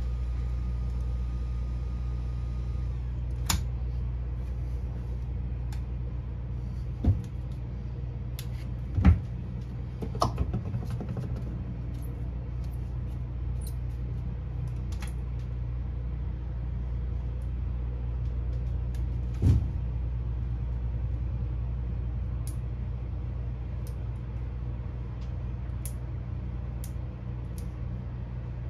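A steady low hum from a running machine, with scattered clicks and knocks from fiber splicing tools being handled. The loudest knock comes about nine seconds in, another at about twenty seconds.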